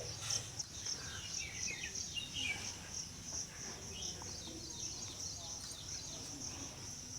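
Insects chirring in a steady, rapidly pulsing high note, with birds chirping in short falling notes over it.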